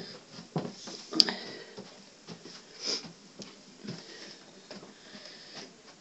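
Slow footsteps climbing indoor stairs, a soft thud about once a second, with a sharp click about a second in.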